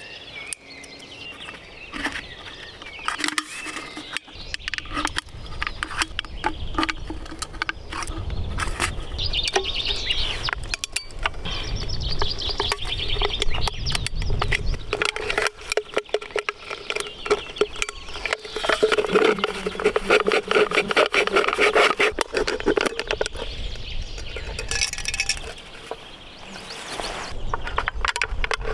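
Close-up handling sounds of a folding multitool and an aluminium drink can: the tool clicking open, then many clicks, scrapes and metallic creaks as the tool works at the top of the can. Near the end the tool's awl scratches and pokes into the can's thin aluminium wall to punch holes.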